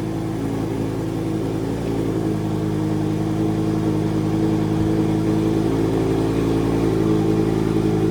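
Lamborghini Huracan Evo's V10 engine idling steadily while the car creeps along, growing a little louder toward the end.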